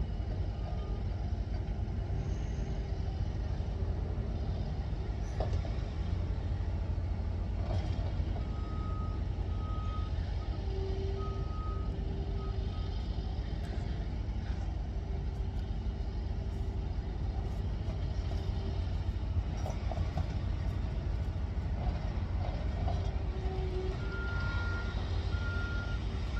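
Steady low rumble of a vehicle, with short high electronic beeps that come and go, as from a reversing alarm.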